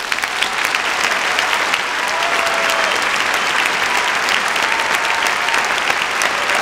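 Audience applauding, the clapping swelling up at the start and then holding steady and loud.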